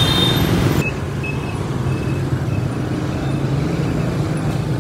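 Street traffic noise: a steady hum of passing vehicles, with an abrupt change in the sound about a second in.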